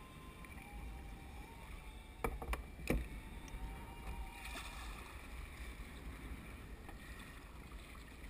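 Sea water sloshing against a kayak hull, with a few sharp knocks about two to three seconds in, the loudest near three seconds.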